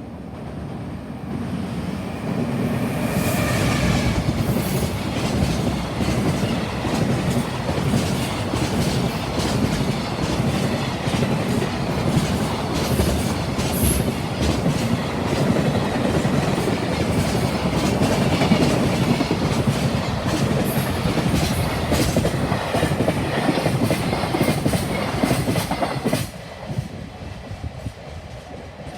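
A long train passing close by at speed, its wheels clacking steadily over the rail joints for about 25 seconds before it fades near the end.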